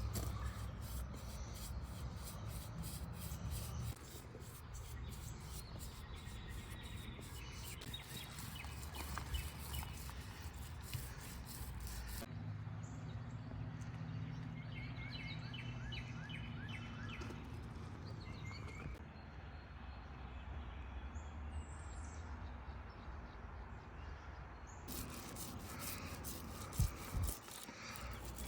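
Outdoor background noise with a low steady hum, and birds chirping now and then.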